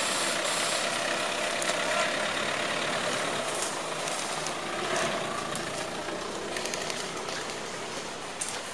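A heavy vehicle's engine running steadily and slowly growing fainter, with a few sharp clicks over it.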